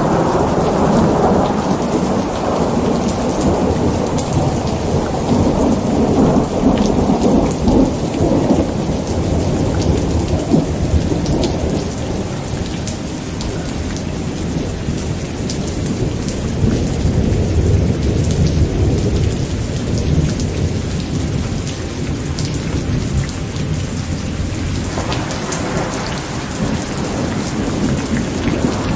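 Steady rain falling with thunder rumbling low and continuously; the rumble is strongest in the first half, eases about midway and swells again near the end.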